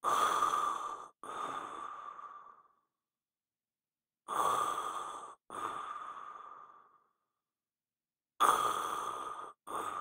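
A person snoring in deep sleep, with slow, regular breaths about four seconds apart, three times. Each breath has a loud first part, a short break, then a longer second part that fades away.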